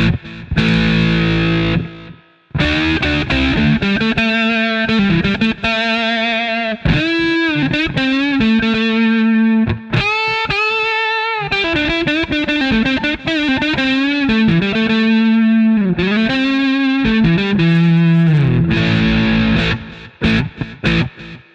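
Fender Stratocaster electric guitar played through heavy distortion: sustained chords, then a lead line with string bends and vibrato, then more chords that ring out and fade near the end.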